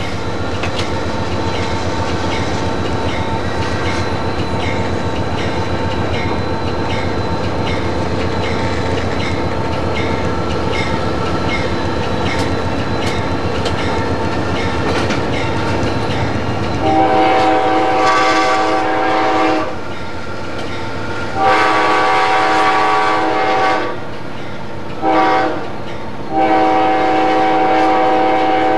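Amtrak P40-8 diesel locomotive running, heard from inside its cab: a steady engine and running-gear rumble with a regular ticking. From about 17 seconds in, the locomotive's multi-tone air horn sounds long, long, short, long, the standard grade-crossing signal.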